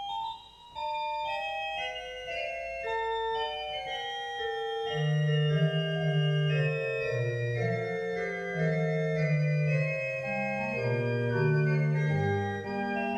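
Pipe organ music: a melody of short held notes in the upper range, joined by a low bass line about five seconds in.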